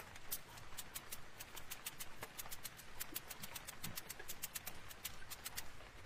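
Rapid short sprays of a spray bottle misting liquid colour onto a paper art-journal page, about six quick spritzes a second.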